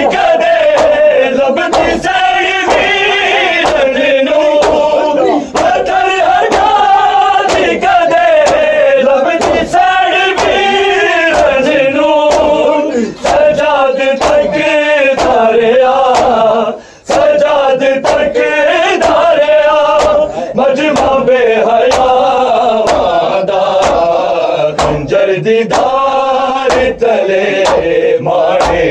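Men chanting a Punjabi noha (mourning lament) together over a steady rhythmic beat of sharp strikes, about one every 0.7 seconds, in the manner of matam chest-beating.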